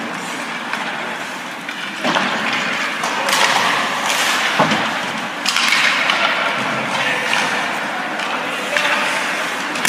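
Live ice hockey play: skates scraping the ice and sticks and puck clacking, with sharp knocks about two seconds in and again near the middle, over a steady murmur of spectators' voices.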